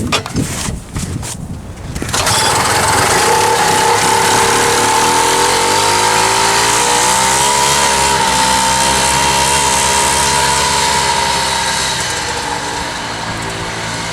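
A 1970 Moto Ski Grand Prix snowmobile's 340cc Sachs single-cylinder two-stroke engine catches suddenly about two seconds in and keeps running steadily. Its pitch rises a little, then eases back, and it gets somewhat quieter near the end.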